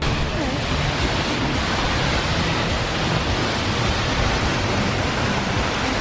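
Seljalandsfoss waterfall crashing down, heard up close from behind the falling water as a loud, steady roar.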